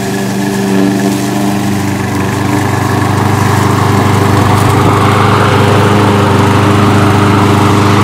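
Small gas engine of a hybrid remote-control lawn mower running steadily as the mower drives over grass. It grows louder from about three seconds in as the mower comes close.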